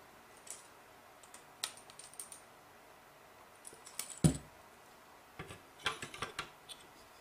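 Scattered small clicks and taps of an electric motor being handled and fitted into the metal motor mount of an RC helicopter frame, with one solid knock a little after four seconds in and a quick run of clicks near the end as the motor is pressed into place.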